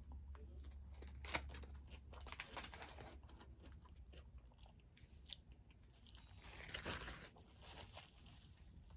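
Faint, close-up chewing and crunching of a mouthful of burrito, with scattered small wet mouth clicks. There is a sharper click about a second and a half in, and a longer noisy chew near the seven-second mark.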